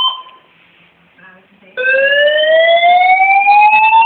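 Fire alarm sounding a repeating rising sweep tone: one sweep cuts off at the start, and after a pause of under two seconds the next begins low and climbs steadily. It is a false alarm: there is no fire, and the new alarm system is too sensitive.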